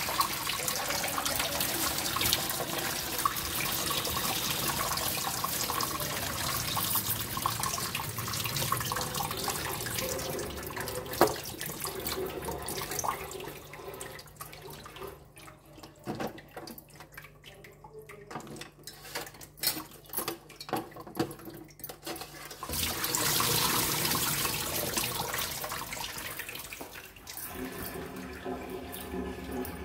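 Kitchen tap running steadily into a steel bowl of water in a sink. About halfway through the flow drops away and hands swish and splash leafy greens in the bowl, then the tap runs again near the end.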